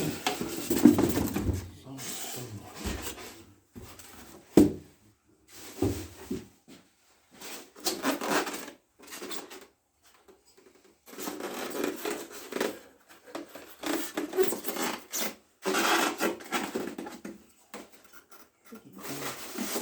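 Parts and packaging being handled during unboxing: irregular bursts of rubbing and rustling with short pauses, and a sharp knock about four and a half seconds in.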